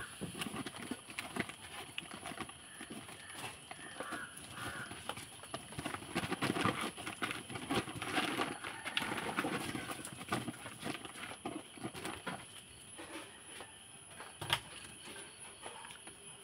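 Pomeranian puppies play-fighting on paper cement sacks: irregular rustling and crinkling of paper with scuffling paws, busiest in the middle and easing off toward the end, and one sharp knock near the end.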